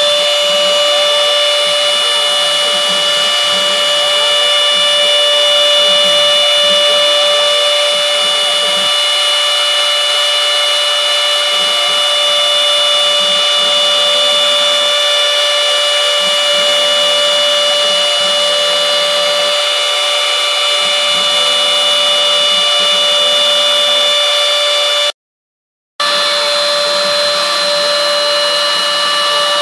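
CNC router spindle running steadily and milling florist foam, giving a high multi-tone whine. A lower hum starts and stops several times. The sound cuts out for about a second near the end.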